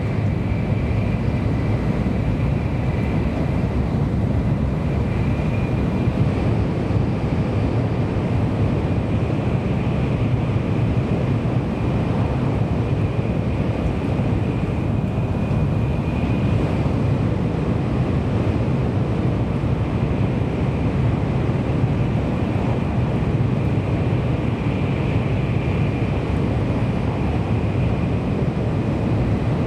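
Kyushu Shinkansen train heard from inside the passenger cabin, running at speed: a steady, unchanging low rumble with a hiss on top.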